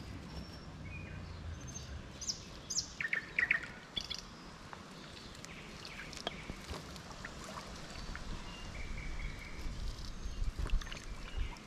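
Several songbirds chirping and whistling in short calls, busiest about three seconds in, over a steady low rumble.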